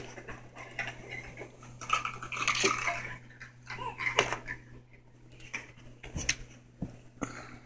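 Irregular clicking and clattering of four-week-old puppies scrambling over each other in a towel-lined plastic pool, with rubbing close to the phone's microphone and a couple of short squeaks in the middle.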